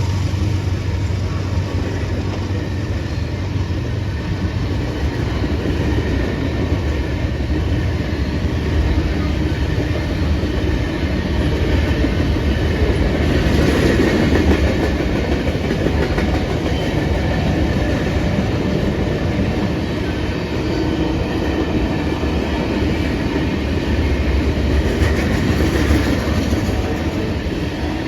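CSX freight train rolling past a grade crossing: the cars' wheels give a steady rumble and clatter on the rails.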